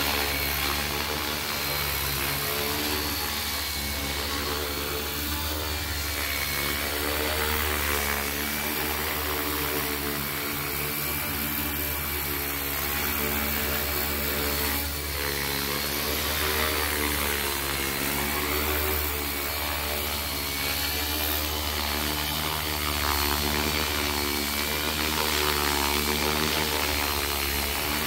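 ALZRC Fast Devil 420 electric RC helicopter running and hovering low, its main rotor spinning with a pitch that wavers slightly as the speed changes. A steady high whine runs over it.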